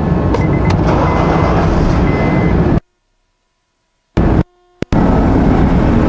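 Honda Accord 2.4-litre four-cylinder engine running steadily at idle just after start-up, without the whine it is being checked for. The sound cuts out abruptly for about a second and a half near the middle, then the engine is heard again.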